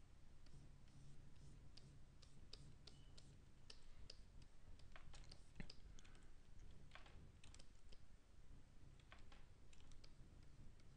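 Near silence with faint, irregular clicking of computer keys over a low steady hum.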